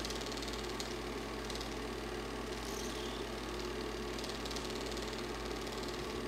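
Super 8 film projector running: a steady mechanical whir and hum with a fast, fine, even clatter from the film transport.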